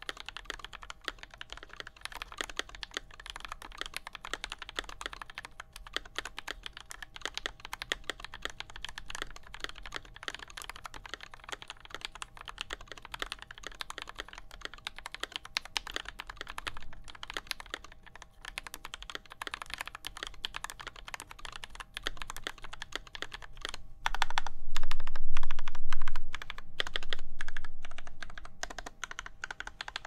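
Polygon 65% custom mechanical keyboard with a brass plate and 205g0-lubed Hippo linear switches being typed on, a fast, continuous patter of keystrokes. About 24 seconds in it gets much louder for around five seconds.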